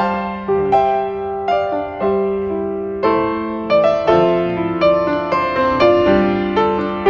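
Background piano music: a slow piece of struck notes and chords, each left to ring and fade.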